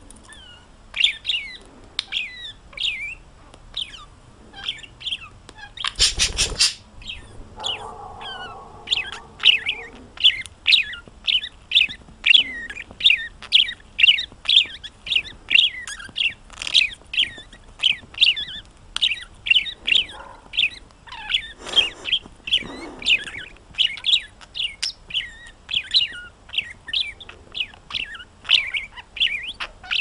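A budgerigar chirping in quick, short, high calls, repeated about three times a second. There is a loud bump about six seconds in.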